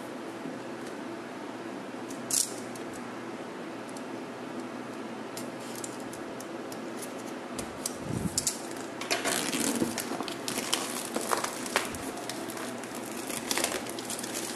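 Shrink-wrapped cardboard box handled on a table. About two seconds in there is a single sharp tap, and from about halfway on the plastic wrap crinkles and crackles as fingers work at it, over a steady low fan hum.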